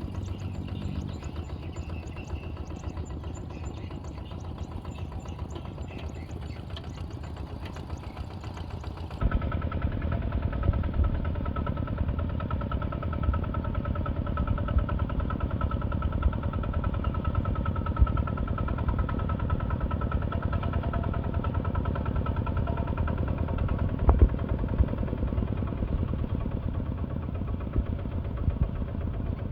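Heavy machine's engine running steadily. It jumps louder about nine seconds in with a steady whine over it, and there is a single knock about two-thirds of the way through.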